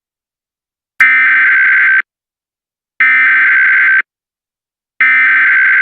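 Emergency Alert System SAME header: three loud one-second bursts of buzzing digital data tones, about a second apart, the last cut off at the end. This repeated data burst is the coded header that sets off an emergency alert on receiving stations.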